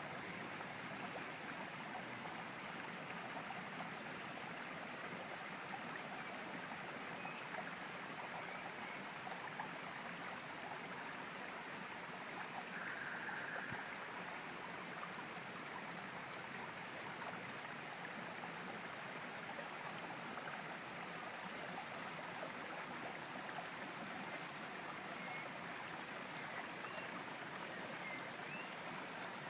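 River water flowing steadily, a constant rushing and trickling with no break, with a few faint short high chirps here and there.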